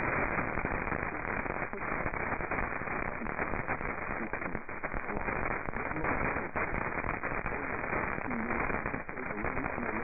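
AM radio reception through a web SDR receiver tuned to 970 kHz: steady hiss with frequent crackling static and a faint voice buried under the noise, stronger near the end.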